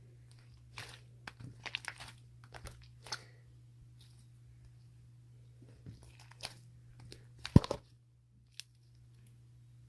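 Irregular crunches and crinkles close to the microphone, with one loud knock about seven and a half seconds in, over a steady low hum.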